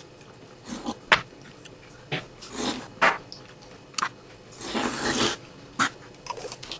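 Jelly shots being sucked and slurped out of shot glasses one after another: short slurps, with one longer slurp about five seconds in, and a couple of sharp clicks.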